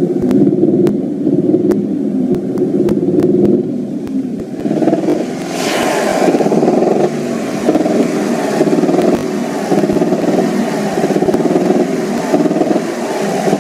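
Škoda car engine running, with sharp, uneven knocks in the first few seconds, then revved up about five seconds in and held at higher revs. The knock is one that comes on above 2000 rpm; the engine has been opened and nothing found, and the uploader suspects the exhaust or muffler.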